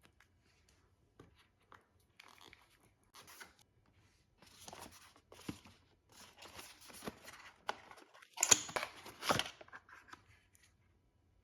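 Packaging being handled and unwrapped: scattered rustles and small clicks, building into denser crinkling and tearing that is loudest a little past the middle, then dying away.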